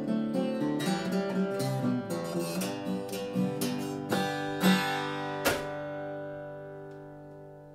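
Acoustic guitar playing the closing bars of a song: a run of picked notes and strums, then a last strummed chord about five and a half seconds in that is left to ring and fades away.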